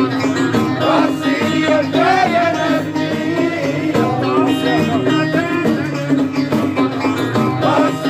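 Music: a voice singing ornamented, gliding lines over a plucked string accompaniment, with a steady low note held underneath.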